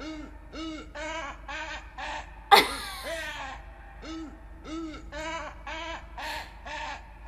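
A repeating animal call: short pitched notes, each rising then falling, about two a second. About two and a half seconds in there is one much louder shrill cry that sweeps down in pitch.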